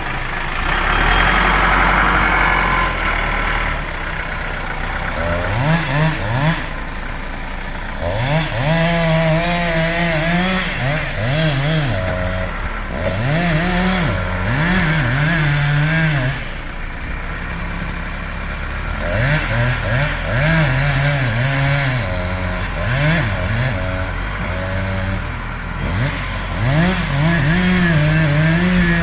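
Two-stroke chainsaw revved again and again: the throttle is opened so the engine climbs to full speed, holds for a second or several, then drops back toward idle. This repeats about a dozen times over a steady low engine hum.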